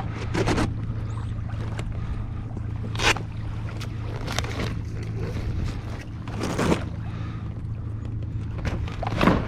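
Choppy water slapping against a kayak's hull, with a few louder splashes over a steady low wind rumble.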